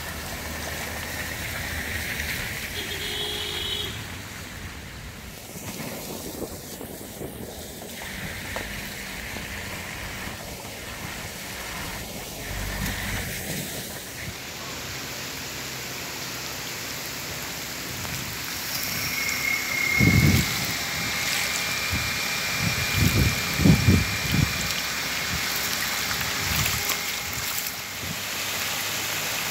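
Cars driving along a rain-soaked road through standing water, over a steady wash of rain and running floodwater. A few dull thumps come about two-thirds of the way through.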